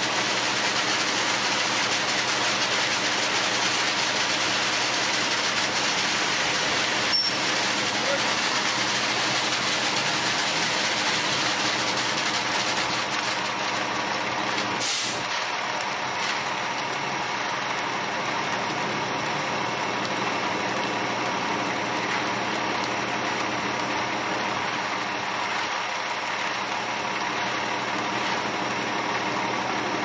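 Ready-mix concrete truck's diesel engine running steadily while concrete is discharged down its chute. Two brief sounds stand out over it, a click about seven seconds in and a short scrape about fifteen seconds in.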